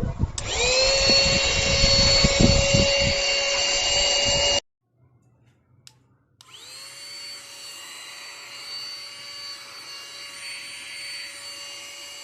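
Wowastore portable mini vacuum cleaner's motor spinning up to a steady high whine and running, with rough low rubbing noise beneath. It cuts off suddenly about four and a half seconds in. After about two seconds of silence the motor spins up again and runs steadily, quieter.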